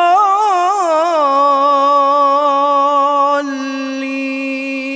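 A man's voice in melodic Quran recitation, drawing out one long vowel, the extended madd of "ḍāllīn". The pitch wavers in ornaments for the first second or so, then holds steady, stepping slightly lower about three and a half seconds in.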